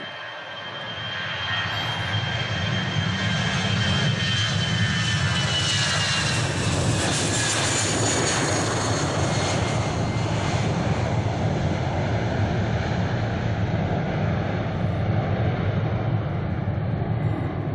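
Airbus A320 twin-engine jet at takeoff thrust, rolling, lifting off and climbing away. The steady engine rumble builds over the first two seconds and then holds, and a high engine whine falls slowly in pitch as the plane goes past.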